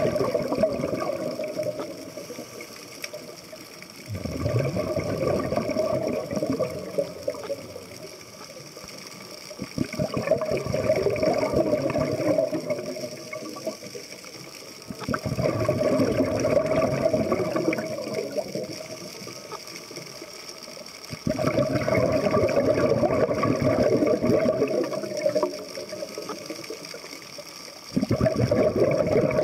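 Scuba diver's regulator breathing underwater: a rush of exhaled bubbles lasting two to three seconds comes about every six seconds, with quieter inhalation between, six times in all.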